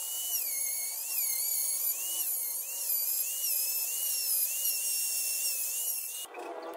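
Hand-held rotary tool with a small sanding drum sanding the edges of thin plywood cut-outs: a high motor whine that dips in pitch and recovers again and again as the drum is pressed into the wood. It cuts off suddenly near the end.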